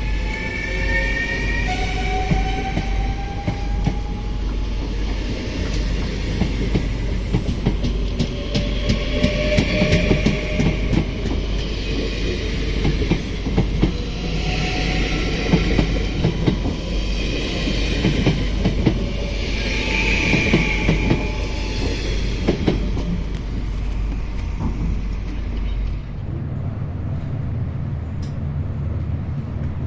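Train passing, its wheels clattering with many sharp clicks over the rail joints. A rising whine comes in the first few seconds, and hissing surges come every few seconds. The sound changes abruptly near the end.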